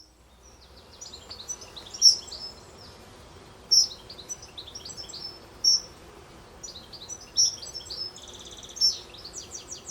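Several songbirds singing and chirping, a louder call standing out about every two seconds among quicker twitters and short rapid trills.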